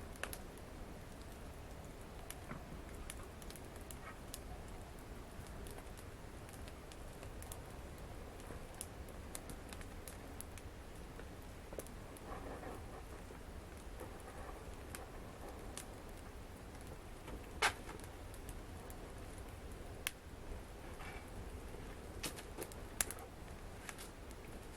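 Wood fire in a fireplace crackling, with scattered irregular pops and snaps over a faint steady low rumble; one sharp pop about three-quarters of the way through is the loudest.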